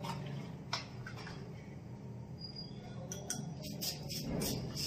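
Light clicks and taps of a small spice container and kitchen utensils over a pan on the stove: one sharp click about a second in, then a cluster of small clicks near the end, over a steady low hum.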